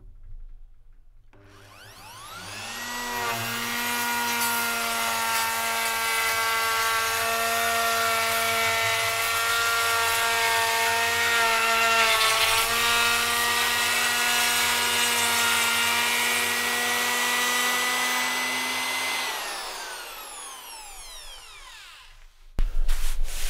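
Handheld electric wood router spinning up with a rising whine, running steadily while cutting a rounded edge along a wooden post, then winding down with a falling whine once switched off. A sudden louder noise starts near the end.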